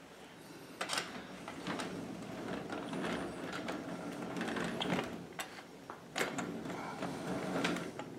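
Carette Gauge 1 tinplate live-steam locomotive and its tinplate coaches running on the track: a steady mechanical rattle with irregular sharp clicks, louder from about a second in as the train gets moving.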